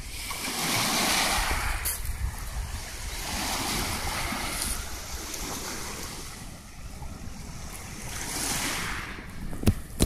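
Small waves washing onto a pebble beach, swelling and falling back about three times, with wind rumbling on the microphone. A single sharp click near the end.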